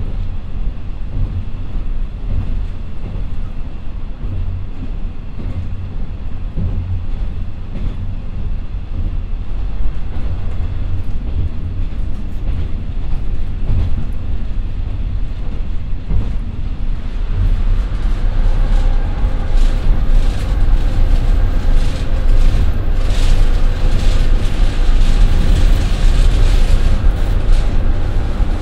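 Interior running noise of a JR Shikoku KiHa 54 diesel railcar: a steady low rumble from its twin Niigata DMF13HS diesel engines and the wheels on the rail. About two-thirds of the way in the brakes come on, and the brake shoes rubbing on the wheels add a rising hiss and squeal as the car slows.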